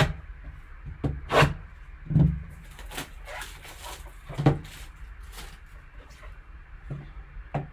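Several sharp knocks and taps, roughly one a second, from a sealed cardboard trading-card box being handled before it is opened.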